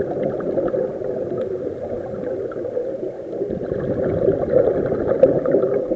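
Steady underwater gurgling and bubbling of water, with faint small ticks scattered through it.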